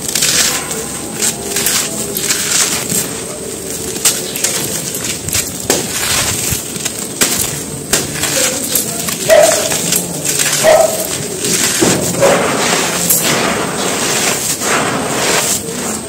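Dry red dirt chunks being crushed and crumbled in gloved hands: a run of irregular gritty crunches and crackles, with crumbs trickling down onto loose dirt.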